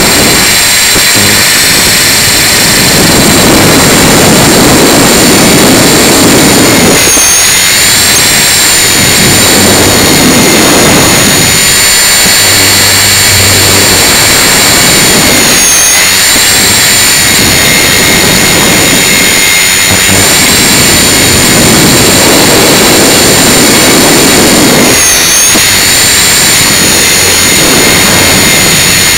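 Tarot 450 Pro electric RC helicopter's motor and gear whine, a steady high whine that wavers briefly in pitch three times. Wind rush on the microphone swells and fades beneath it, in a 20 mph wind.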